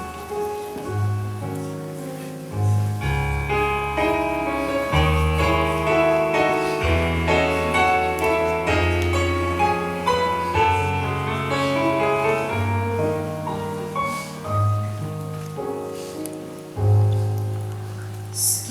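Slow instrumental introduction to a hymn on piano or keyboard: held bass notes with a melody moving above them.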